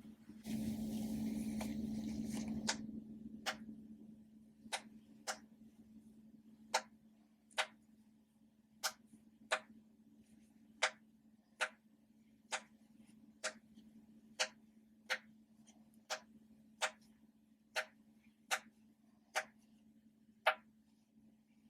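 Animal popper toys being popped one after another by hand: sharp single pops at a slightly uneven pace of about one a second, after a short stretch of rustling handling noise at the start. A faint steady hum runs underneath.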